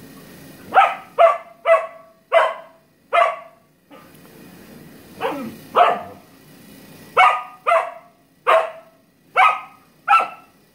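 Samoyed dog barking in play, about a dozen short, sharp barks in three runs: five quick ones starting about a second in, two around the middle, and five more near the end.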